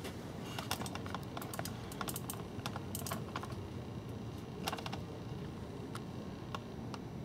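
A run of irregular light clicks and taps, densest in the first half and thinning out towards the end, over a quiet steady background.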